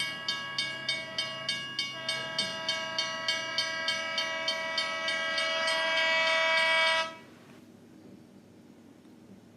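Train sound effect: wheels clacking over rail joints about three times a second under a steady train horn, which grows louder about two seconds in. It cuts off suddenly about seven seconds in.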